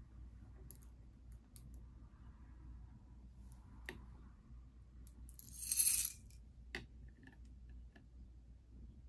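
Light glass clinks as a gas-filled glass tube touches the glass globe of a plasma lamp, once about four seconds in and again near seven seconds. A short hissing rush comes just before six seconds, over a faint low hum.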